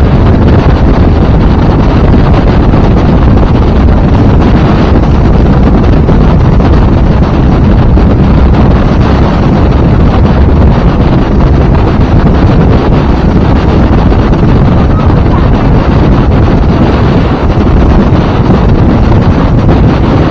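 Loud, steady wind noise on the microphone aboard a 2000 StarCraft boat under way in big waves, mixed with the boat's engine and rushing water.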